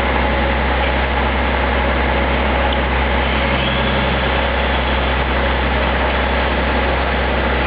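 Water from a burst main gushing up through the broken road surface and rushing across the flooded street: a loud, steady rush with a constant low rumble underneath.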